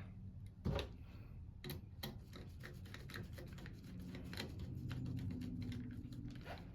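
Scattered small clicks and handling noises of hands working wires into the terminals of a pump's wiring, over a faint low hum.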